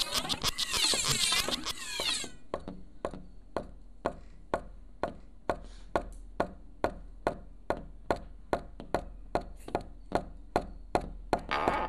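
A busy squeaky chattering that stops about two seconds in, followed by a steady series of sharp taps, about three a second.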